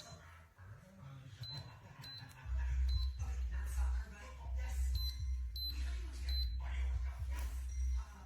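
Short, high electronic beeps, about seven of them at uneven spacing, like the touch buttons of a wine cooler's control panel being pressed. A low rumble comes in about two and a half seconds in and runs under them.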